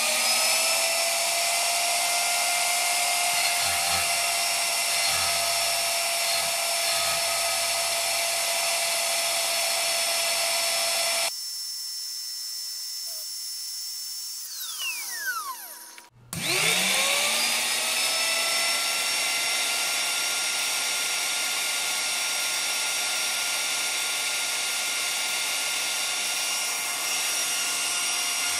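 Precise Super 60 high-speed electric grinder spinning up with a rising whine and then running at speed with a steady high whine of several tones, about 43,000 rpm, while driving a tachometer off its shaft. About 11 seconds in the sound drops and the whine falls in pitch as it winds down, and at about 16 seconds it spins up again and runs steadily to the end.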